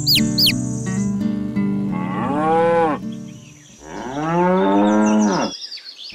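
Cow mooing twice, two long moos that each rise and fall in pitch, the first about two seconds in and the second, longer one about four seconds in. Light background music with a few quick bird chirps plays before the first moo.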